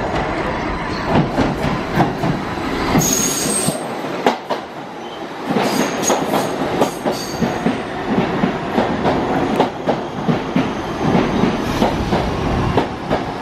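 New York City subway train of R68-series cars pulling into a station, wheels clacking over rail joints with a steady rumble. Brief high-pitched wheel squeals come about three seconds in and again around six seconds in as it slows.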